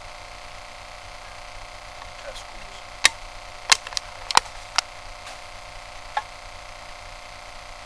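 A run of about seven sharp knocks or clicks, irregularly spaced and bunched between about three and five seconds in, with one more a little after six seconds.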